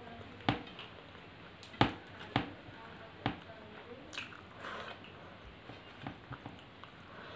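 Close-up chewing and wet mouth sounds of someone eating rice and curry by hand, with a few sharp smacking clicks in the first few seconds.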